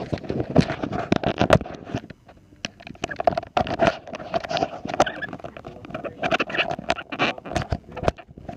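Handling noise: rapid, irregular knocks, clicks and scrapes, with brief lulls about two and three and a half seconds in.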